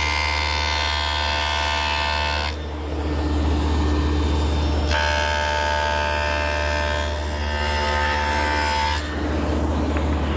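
Table saw fitted with a stacked dado head running steadily, cutting a rabbet along the edge of a wooden rail. The pitch of the cut rises into a dense, high whine twice: first for about two and a half seconds, then again from about five seconds in until about nine seconds in, with the saw running free between and after the cuts.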